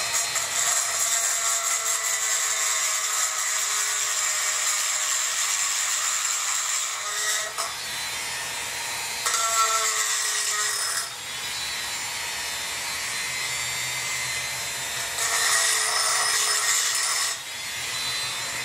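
Dremel 4000 rotary tool with a porting bit grinding out the port of a Chinese 80cc two-stroke bicycle-engine cylinder, widening the port to match it. A steady high whine that sags a little in pitch as the bit bites, louder in stretches about nine and fifteen seconds in.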